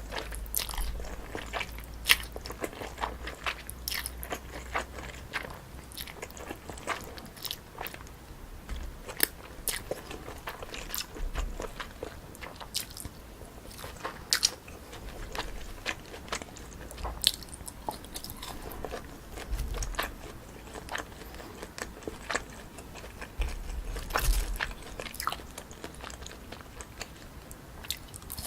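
Close-miked eating: chewing and biting a bowl of jjolmyeon, spicy cold chewy noodles mixed with crisp cucumber and fruit, with many short, sharp crunches at an uneven pace.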